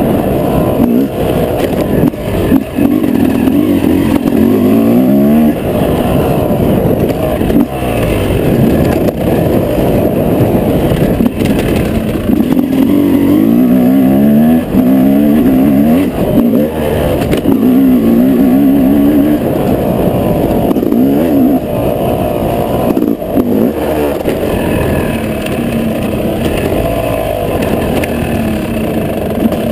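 Yamaha YZ250 two-stroke single-cylinder motocross engine, heard close up while riding, revving up and dropping back over and over as the rider accelerates, shifts and backs off around a dirt track. It settles lower and quieter near the end.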